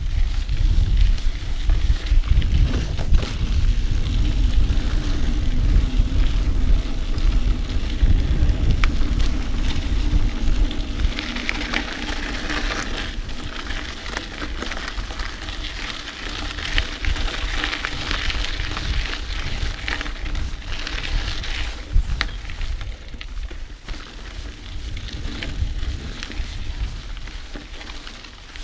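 Mountain bike ridden over a dirt trail: tyres crackling over the ground and the bike rattling over bumps, with low wind rumble on the camera microphone. The rumble is heaviest in the first half and eases later on.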